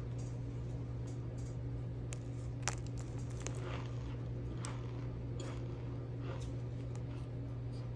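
Cornstarch sprinkling down onto a mound of powder, with soft scattered patters and one sharper tick a little under three seconds in, over a steady low hum.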